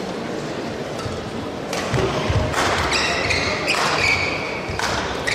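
Badminton rally: rackets strike the shuttlecock about five times, with court shoes squeaking on the court mat and feet thudding between shots.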